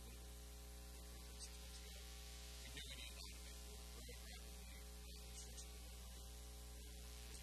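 Steady electrical mains hum with a buzz of its overtones, over a faint hiss.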